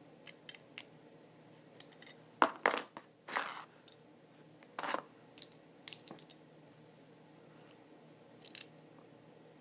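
Metal and plastic Beyblade parts clicking and tapping together as a Wing Pegasus top is put together by hand: scattered sharp clicks, the loudest cluster about two and a half seconds in.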